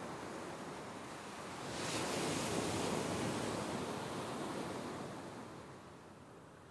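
Ocean waves washing onto a sandy beach: a wave swells in about two seconds in and then recedes, fading near the end.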